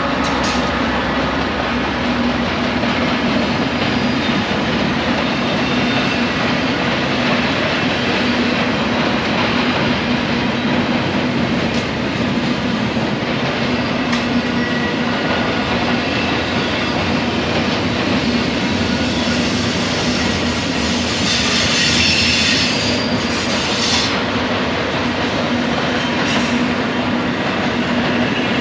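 Freight train rolling past: the steady rumble and rattle of its cars on the rails, with scattered clicks from wheels over the rail joints and a high wheel squeal about three quarters of the way through.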